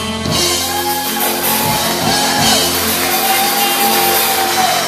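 Live acoustic blues played by a trio of acoustic guitar, electric bass and drums, with three long drawn-out vocal notes over the band.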